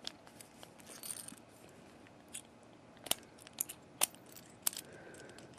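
Vintage US Mail registered padlock clicking as its shackle is swung around, the geared mechanism inside advancing the lock's counter by one. A handful of faint, irregular clicks.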